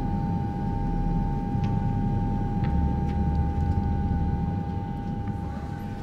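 Steady low rumble with a constant whining tone held above it, a sustained drone like engine noise, with a few faint ticks; the whine fades out near the end.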